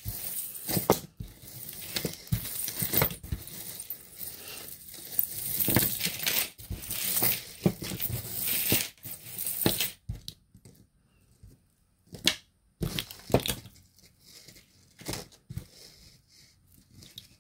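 Costume jewelry (metal chains, beads and pendants) clinking and rattling as it is rummaged through and sorted by hand. The jingling is dense for about the first ten seconds, then thins to a few separate clinks.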